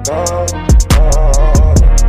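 Hip hop track playing without rapping: booming bass-drum hits that drop in pitch, quick hi-hats, and a wavering melody line.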